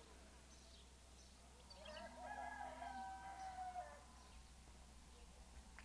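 A rooster crowing once, faint: a single drawn-out call of about two seconds that begins about two seconds in, wavering at first and then holding its pitch.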